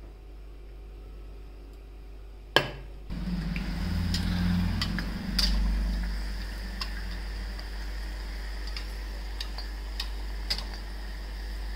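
A dough basket deep-frying in a kadhai: a steady low hum and a faint sizzle of hot oil, with a perforated metal skimmer clinking against the pan in scattered sharp ticks. A single sharp click comes just before the frying sound starts, about three seconds in.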